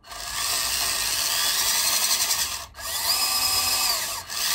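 WPL B-1 1/16-scale RC truck's electric motor, gearbox and new drive shafts whirring as the wheels spin freely off the ground, tested in three runs with brief breaks about two and a half and four seconds in. During the middle run a whine rises, holds, then falls as the throttle is eased.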